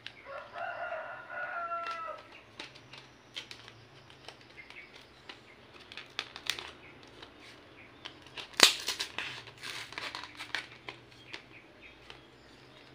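A rooster crows once in the background near the start. The cardboard sleeve of a pruning saw is then handled and slid along the blade: scattered rustling and clicks of card, with one sharp loud crackle a little past halfway.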